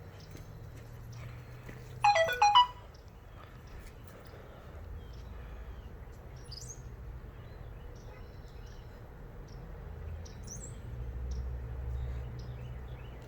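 Newborn puppies giving faint, scattered high squeaks. About two seconds in, a brief, loud run of high-pitched notes stands out above them.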